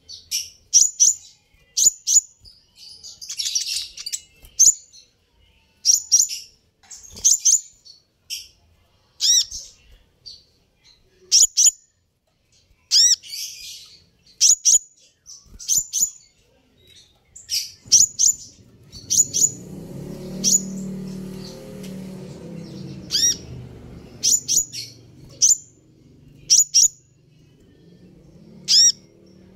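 Van Hasselt's sunbird (kolibri ninja) calls: short, sharp, high chirps, many sweeping downward, coming about one or two a second throughout. A low rumbling noise runs for several seconds in the second half.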